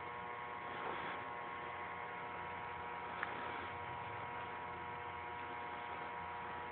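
Steady electrical mains hum through the Realistic Lab 1500 turntable's playback, with no music, and one faint click about three seconds in.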